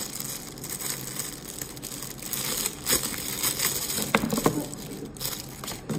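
Clear plastic packaging crinkling and rustling as bagged marble mesh fidget toys are handled, with a few sharper crackles about three and four seconds in.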